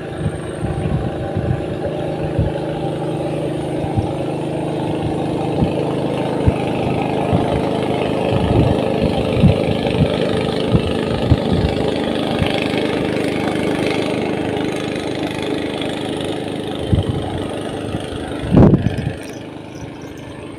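An engine running steadily: a low, even drone that eases off over the last few seconds. Scattered short knocks and bumps of handling close to the microphone.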